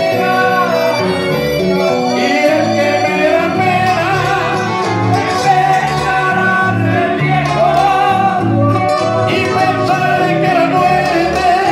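A man singing a Latin song into a microphone over amplified accompaniment, the melody held and wavering over a steady stepping bass line.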